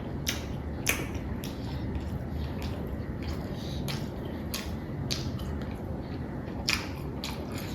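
A person eating: chewing with scattered wet mouth clicks and smacks at irregular intervals, over a low steady hum.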